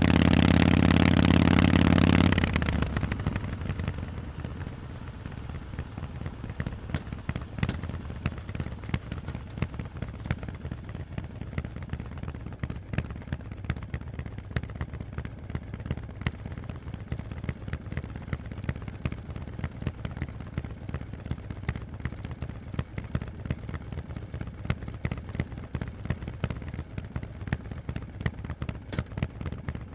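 Harley-Davidson Forty-Eight's air-cooled V-twin through loud Vance & Hines exhausts, running loud and steady for the first couple of seconds, then dropping off to idle with uneven exhaust pulses for the rest.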